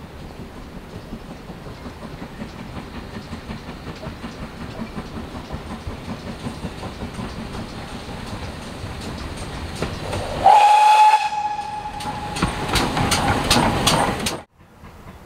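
Steam locomotive running, its rumble and beat growing steadily louder for about ten seconds. Then it sounds a single-note whistle for about a second and a half, followed by a run of sharp, loud rhythmic beats, before the sound cuts off abruptly.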